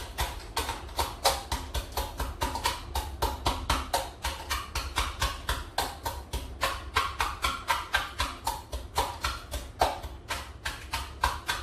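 Oreo cookies being crushed in a bowl by repeated pounding, a steady run of sharp knocks about four a second.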